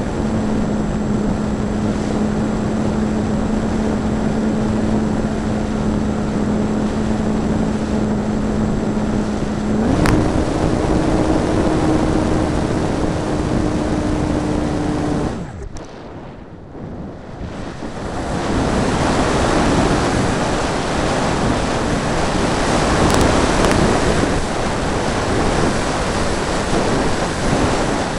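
Electric RC hotliner's motor running with a steady hum under heavy wind rush over the onboard microphone. About ten seconds in the motor steps up in pitch, and some five seconds later it cuts off; after a short quieter stretch the wind rush builds up loud again as the plane glides.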